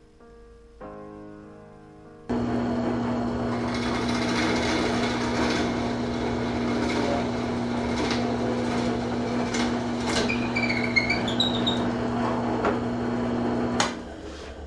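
Drill press motor starting about two seconds in and running with a steady hum as the bit bores into a 2x4 block, with scattered clicks and scraping, then switched off shortly before the end. Soft background music before it starts.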